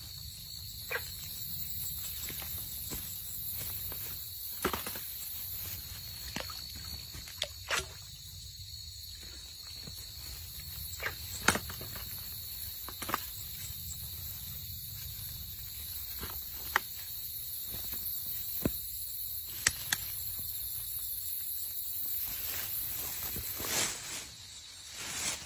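A steady high insect chorus, with scattered sharp clicks and knocks throughout.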